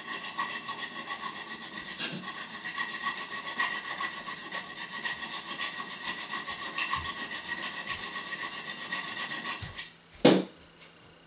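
Hand file rasping in quick back-and-forth strokes along the edge of a laser-cut stainless steel plate, with a faint steady ring underneath. The edge is being filed down so that a linear rail will fit without forcing. The filing stops near the end, followed by a single sharp knock.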